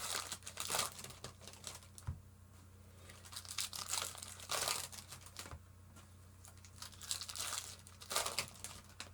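Foil trading-card pack wrappers crinkling and tearing in several short bursts as packs are opened and handled, over a low steady hum.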